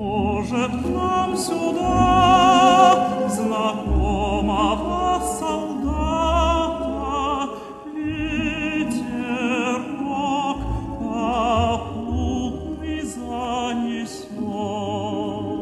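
Background music: a solo singing voice with strong vibrato over orchestral accompaniment.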